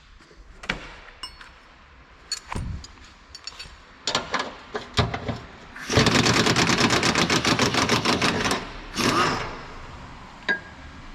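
Scattered metal clinks and knocks of tools, then a pneumatic impact wrench rattling hard for about two and a half seconds, with a shorter burst a moment later.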